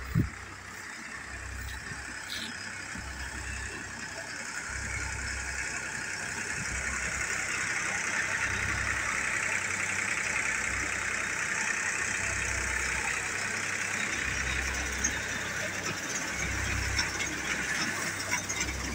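Tractor-driven paddy thresher running as paddy is fed in: a steady whirring hiss from the spinning drum over the tractor engine's hum, growing louder over the first several seconds. A single sharp knock comes right at the start.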